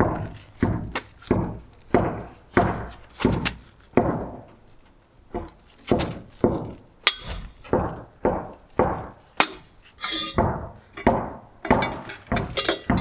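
Repeated hammering: sharp knocks, about two or three a second, with a short pause about five seconds in.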